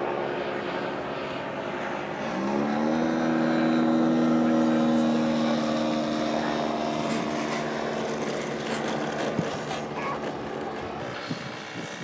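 Engine of a radio-controlled model airplane on a low pass. It opens up about two seconds in, rising in pitch, holds steady and loudest for a few seconds, then fades as the plane goes by.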